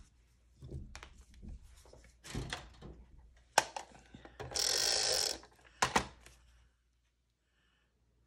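Paper-crafting supplies handled on a desk: scattered light knocks and a couple of sharp clicks, with a brief hiss of paper or tape being rubbed or peeled about four and a half seconds in. The sound cuts out near the end.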